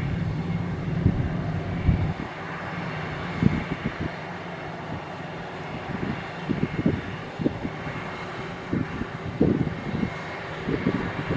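Fendt 6335 C combine harvester running steadily, with many short, irregular low thumps from about two seconds in.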